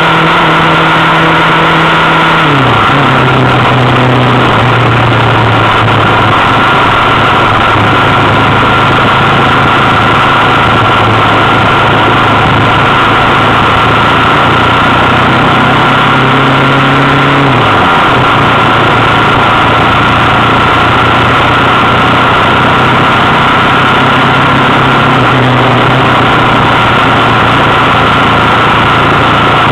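A motorcycle engine running at road speed under heavy wind rush on the microphone. The engine's pitch falls twice, once about two to three seconds in and again near eighteen seconds, and holds steady in between.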